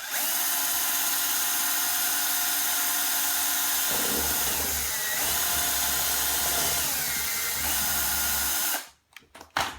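Electric drill running steadily as it bores a hole through the wall of a plastic tub, its tone shifting about four seconds in as the bit works through. The drill stops suddenly near the end, followed by a few short clicks.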